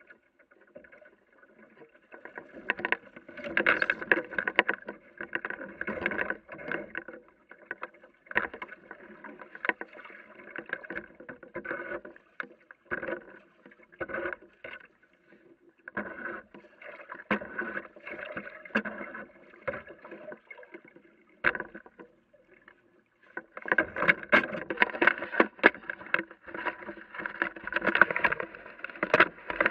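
Water lapping and slapping against the hull of a small sailing dinghy under way: irregular splashes and small knocks with short quiet gaps between them, becoming busier and louder about three-quarters of the way through.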